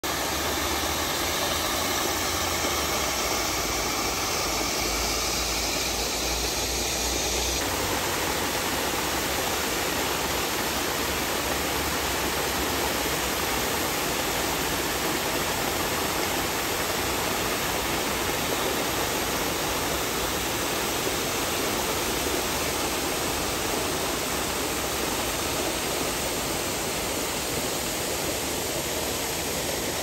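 A waterfall's falling water, a steady rush of noise.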